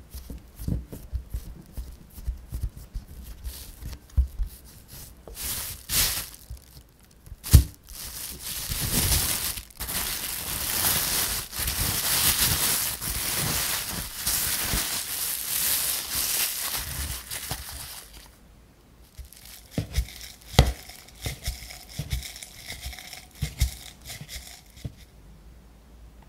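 Hands pressing and shaping soft cookie dough with quiet pats, then plastic cling film crinkling for about ten seconds as it is wrapped around the dough and rolled into a log, with lighter crinkles and taps near the end.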